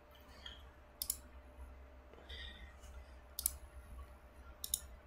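Faint, sharp clicks of a computer mouse: single clicks about a second in and midway, then a quick double click near the end, over a low steady hum.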